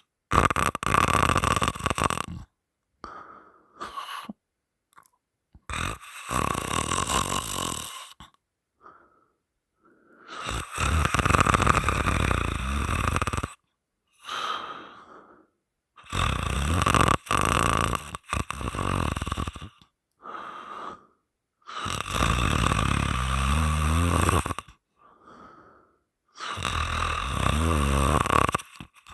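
A woman snoring loudly with her mouth open: about six long, rasping snores, one every five seconds or so, with fainter breaths between them.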